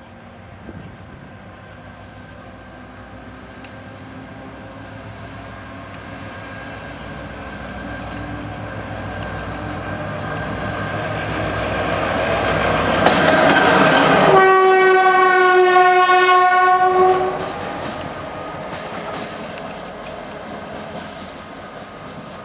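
A diesel locomotive running light approaches, passes close by and moves away, its engine and wheel noise growing steadily and then fading. Near the peak it gives one long horn blast of about three seconds, a single steady note.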